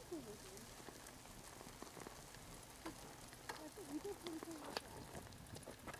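Bicycle tyres rolling along a paved path: a faint crackling hiss with scattered small clicks and rattles.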